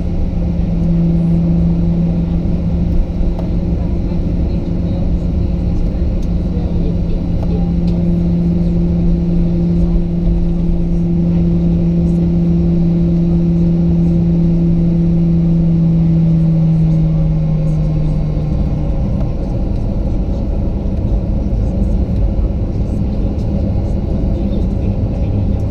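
Boeing 737-900 cabin noise while taxiing: a steady rumble of the CFM56-7B engines at low thrust and the wheels on the taxiway. A steady low hum rides on top and fades out about three-quarters of the way through.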